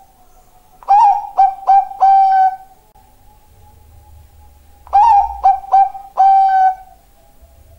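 Bangkok-line zebra dove (perkutut) singing its cooing song twice, each phrase three short notes followed by a longer held note.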